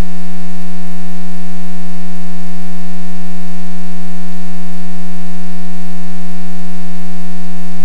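Loud, perfectly steady electrical hum in the aircraft's headset/intercom audio, a buzzing tone of constant pitch with many overtones that cuts in and out sharply.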